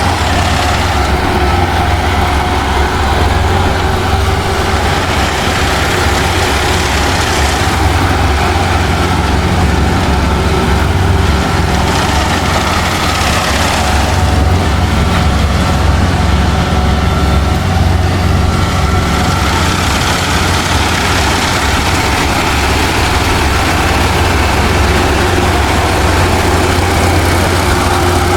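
Kubota PRO588I-G rice combine harvester running steadily while harvesting: a loud, even engine drone with a thin whine from the machinery that comes and goes in the middle.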